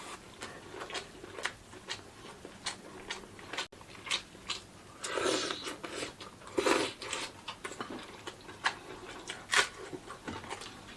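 People eating at the table: chewing and mouth sounds with many light clicks and knocks, and a few louder bursts about halfway through.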